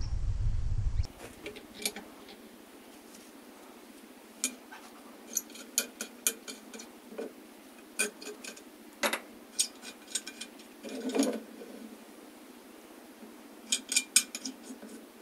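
Scattered sharp metal clinks and taps as a knife is fitted into a steel-tube knife maker's vise and its clamping bolt is worked, some in quick clusters. For about the first second there is a low wind rumble on the microphone, which cuts off suddenly.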